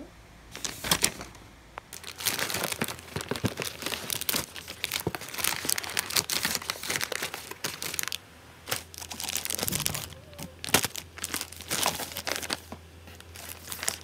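Plastic and foil pet-treat pouches crinkling as they are handled and shuffled, in irregular spells with a short pause about eight seconds in.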